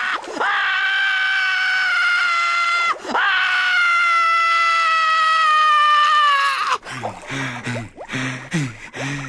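A long, high-pitched scream held on one note, its pitch sagging slowly, broken twice by a short dip as it is taken up again. It cuts off sharply about seven seconds in, followed by short, low, deep-voiced pulses about twice a second.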